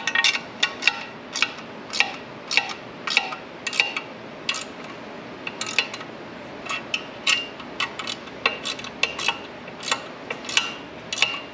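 A 13 mm ratchet wrench clicking in short, uneven runs of sharp metallic clicks as nylon lock nuts are tightened onto the studs of a bed-rack cargo foot.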